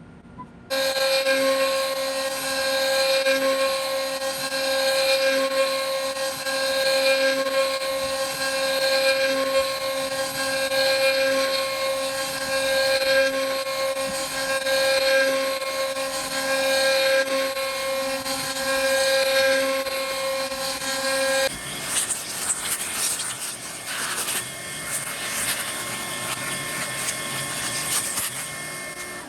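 A power woodworking machine starts about a second in and runs with a steady whine while cutting wood. Near the end the whine gives way to a rougher, scratchier cutting sound.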